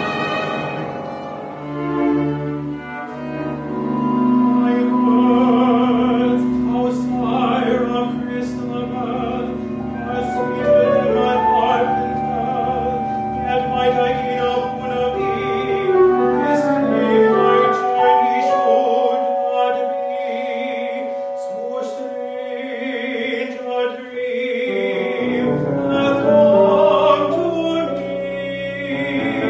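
Chamber ensemble playing: bowed strings (violins, viola, cello, double bass) hold sustained notes with vibrato, with an operatic singing voice over them. The low strings drop out for several seconds past the middle, then come back in near the end.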